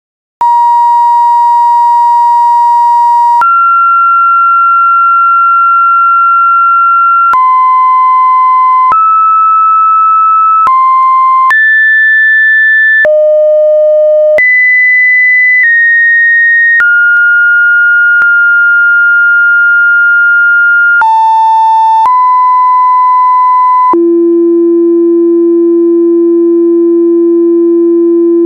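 A run of steady electronic beep tones, each held for one to four seconds before jumping abruptly to a new pitch, about fourteen in all. Most are high-pitched; near the end a lower, fuller tone holds steady.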